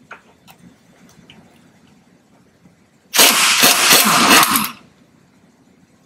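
Impact wrench hammering for about a second and a half, about three seconds in, breaking loose and spinning out one of the 17 mm hub-to-knuckle mounting bolts. A few faint clicks come before it.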